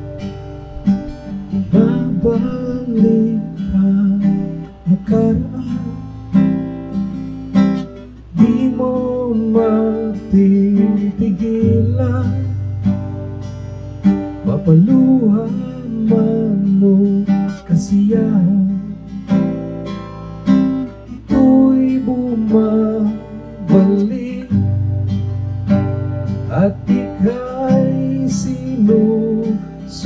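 Acoustic guitar strummed in steady chords, with a man singing a slow song, both amplified through a Fender Passport Venue PA system.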